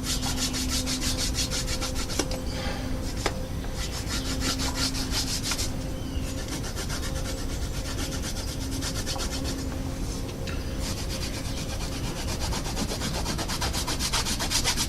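A bar of green stropping compound rubbed rapidly back and forth into the rough side of a leather strop glued to a wooden paint stick: a fast, steady scratchy scrubbing, with a few short pauses, that embeds the compound into the leather.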